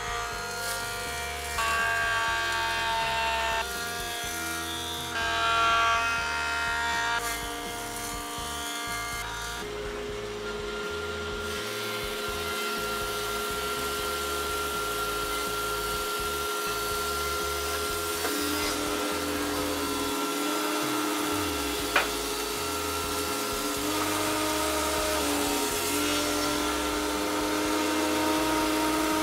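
Background music with held chords that change every second or two, settling into longer sustained tones partway through. There is one sharp click past the midpoint.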